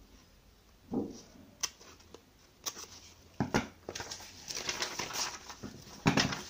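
Paper pattern sheets rustling and crinkling as they are cut with scissors and handled, in a run of short snips and crackles. The loudest crinkle comes near the end.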